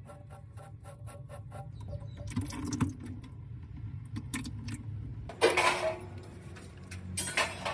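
Small metallic clinks and rattles as a hydraulic hose fitting is handled, with a louder scrape about five and a half seconds in, over a steady low hum.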